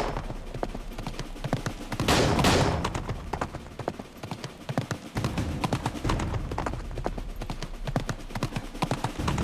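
A horse galloping on a dirt track, its hoofbeats a rapid uneven patter, with a louder burst of noise about two seconds in.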